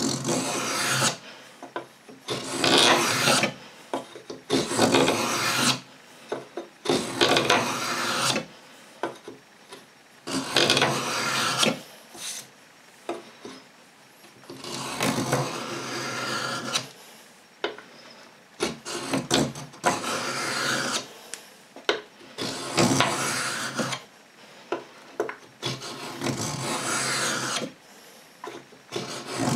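Lie-Nielsen No. 66 beading tool's hardened-steel blade scraping a bead profile into a strip of hard maple: about ten separate scraping strokes, a couple of seconds apart, with short pauses between them.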